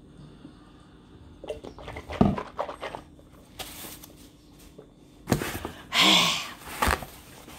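A person eating: small wet mouth clicks and smacks, then a loud breathy mouth sound about six seconds in.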